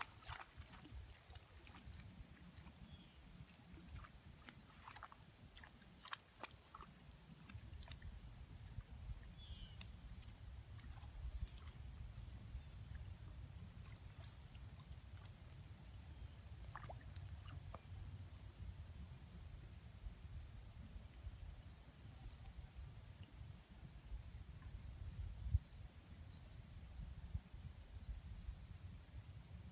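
A steady, high-pitched chorus of insects such as crickets, with a low rumble under it that grows stronger about eight seconds in, and a single sharp tap about twenty-five seconds in.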